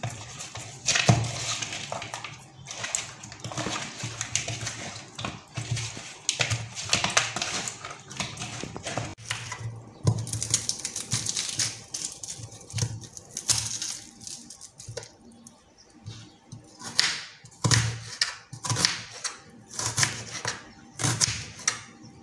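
Kitchen prep noises: hands working salt into whole fish in a plastic bowl, then a knife cutting an onion on a wooden chopping board, with a run of sharp knocks of the blade on the board near the end.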